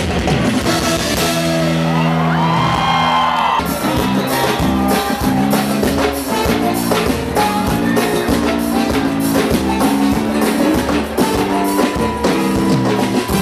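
Live band playing an instrumental passage of axé music: a section of metal-shelled drums beating a dense rhythm under bass and held chords, with a gliding lead line over the first few seconds.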